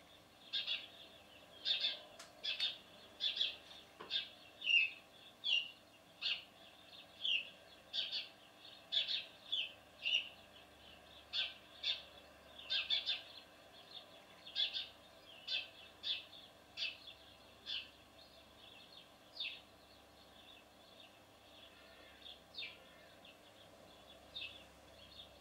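Male house sparrow chirping: a long run of short, repeated chirps, one to two a second, thinning to a few scattered chirps in the last several seconds.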